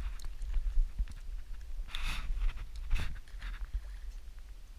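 Handling sounds as a freshly caught Atlantic mackerel is unhooked by hand on a wet concrete quay: scattered small clicks and two louder wet slaps about two and three seconds in. A low wind rumble on the microphone runs under them.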